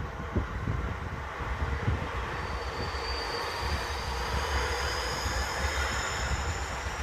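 Electric commuter train passing over a level crossing with a steady rumble of wheels on rail. From about two and a half seconds in, a thin high whine joins it and rises slowly.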